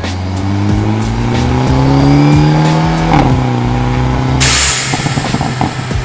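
Hyundai Elantra N's turbocharged 2.0-litre four-cylinder under hard acceleration, heard from inside the cabin: the engine note rises, drops sharply at a quick dual-clutch upshift about three seconds in, then holds. About four and a half seconds in the throttle lifts with a loud hiss from the turbo's blow-off valve, followed by pops and crackles from the exhaust.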